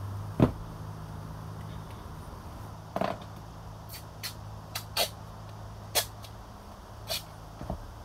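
Handling noises from working on an engine wiring harness with tape: a knock about half a second in, another around three seconds, then a string of light, sharp clicks, over a steady low hum.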